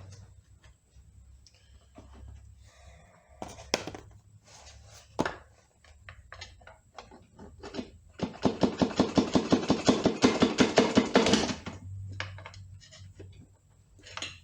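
Scattered single knocks, then a fast run of taps, about seven a second for some three seconds, from working the stuck front pump of a C6 automatic transmission loose, tapping it with a soft-faced hammer and prying at it.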